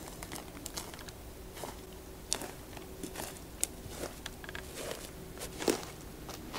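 Footsteps crunching on a carpet of very dry Cladonia (reindeer) lichen, so dry that it crumbles underfoot: irregular crackling with a few sharper snaps, the loudest near the end.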